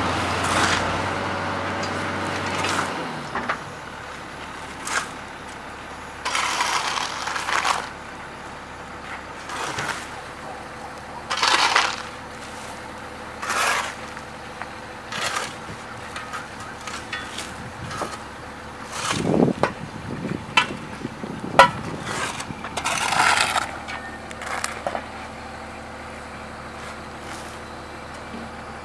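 A heavy vehicle engine runs steadily and cuts off about three seconds in. Then come scattered short scrapes and crunches and a few sharp clicks over a faint steady hum.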